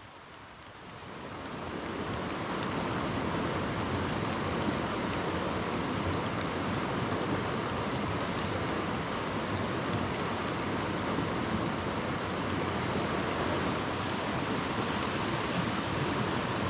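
Rushing water of a mountain creek, a steady rush that swells up over the first couple of seconds and then holds even.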